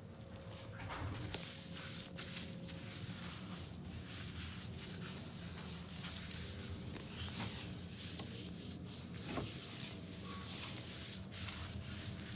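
A rag rubbed across saltillo terracotta floor tiles in repeated strokes, wiping off the first coat of whitewash stain.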